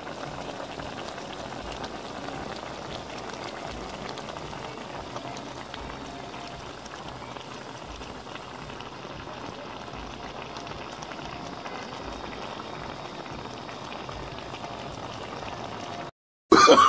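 Pan of chicken wings and pickles in broth boiling, a steady bubbling that cuts off suddenly near the end.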